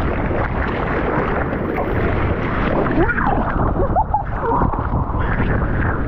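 Seawater sloshing and lapping around an action camera held at the sea surface, with wind buffeting the microphone. A few brief gurgles come near the middle.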